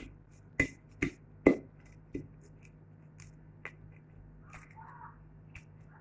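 A utensil scraping out the pulp of a halved lemon, clicking against the rind: about five sharp clicks in the first two and a half seconds, then a few fainter ticks.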